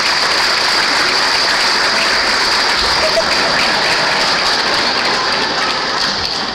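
A large congregation applauding: steady, dense clapping that begins to die away near the end.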